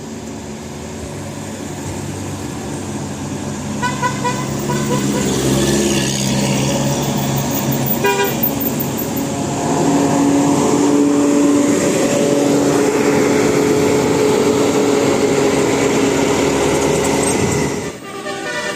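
A bus with a multi-trumpet 'telolet' horn, its engine growing louder as it comes near. The horn gives short toots about four and eight seconds in, then from about ten seconds held horn tones and engine noise stay loud before cutting off suddenly near the end.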